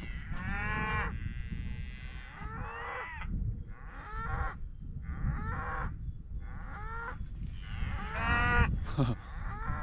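A herd of cattle mooing back and forth, about seven drawn-out calls in turn with short gaps between them, over a low rumble.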